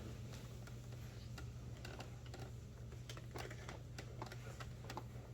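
Scattered light clicks and taps, irregularly spaced, over a steady low hum.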